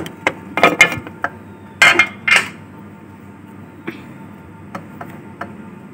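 A metal spoon clinking against a bowl: a quick cluster of sharp clinks over the first two and a half seconds, then a few fainter single taps.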